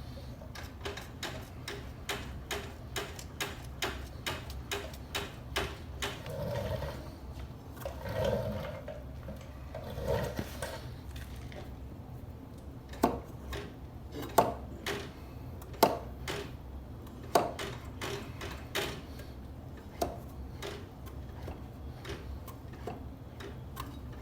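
The rear brake of a Harley-Davidson Road King being pumped to bring the pedal up after a brake pad change. It makes a long run of light mechanical clicks, about two a second at first, then sharper clicks roughly every second and a half in the second half.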